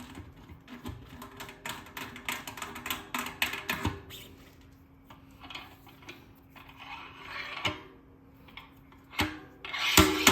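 Small metal parts of a bicycle rear hub clicking, knocking and scraping under hand work during a bearing replacement. There are many quick irregular clicks at first, softer rubbing and scraping in the middle, and a few louder knocks near the end.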